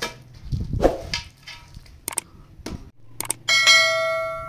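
Clear plastic wrap crinkling as it is handled over a tray of fruit leather, then a few sharp clicks and, about three and a half seconds in, a bright bell-like ding that rings and slowly fades: a subscribe-button notification sound effect, the loudest sound here.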